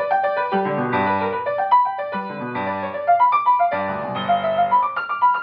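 Upright piano played: a classical piece of quick successive notes over a moving bass line, with several louder accented chords.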